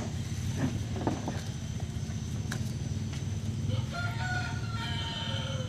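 A rooster crows once, a drawn-out call near the end, over a steady low rumble.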